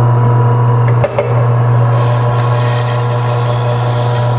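KWS 320-watt electric meat slicer running, its motor giving a steady hum as the carriage pushes semi-frozen chicken breast through the 10-inch blade. A brief click about a second in, then a rasping scrape from about two seconds in as the blade cuts through the meat.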